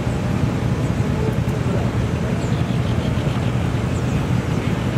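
Off-road 4x4's engine running, a steady low rumble.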